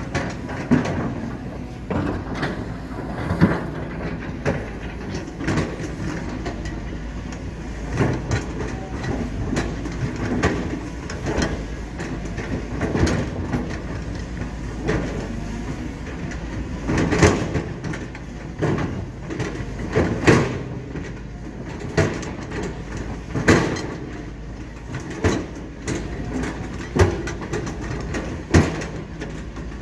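Diesel earthmoving machinery running steadily, with irregular sharp metallic clanks every second or two as the steel parts knock while the machine works soil.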